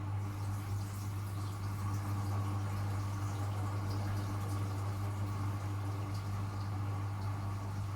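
Miele W1 WCA018 washing machine partway through a 60 °C cotton wash: a steady low hum with water sloshing and trickling, and faint ticks.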